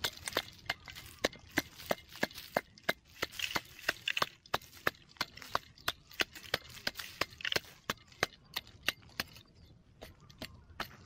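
A small metal hand shovel chopping and scraping into hard, dry, stony soil, about three sharp strikes a second, thinning out near the end.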